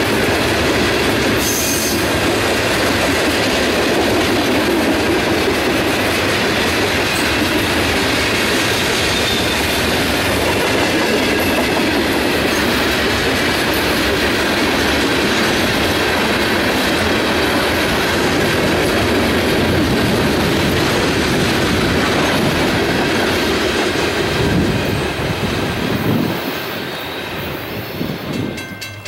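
Freight train of tank cars rolling past close by: the steady rumble and clatter of steel wheels on the rails, dying away near the end as the last cars go by.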